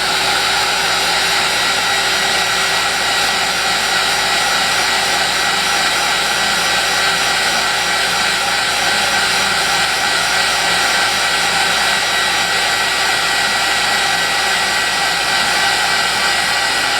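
Craft heat tool blowing hot air steadily over wet watercolor paint to dry it, a loud even rush with a faint high whine.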